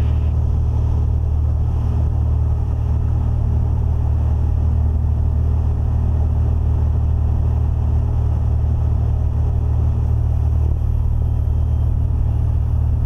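Cessna 182RG's six-cylinder Lycoming O-540 engine and propeller heard inside the cabin in flight: a steady, low drone that holds at one level throughout.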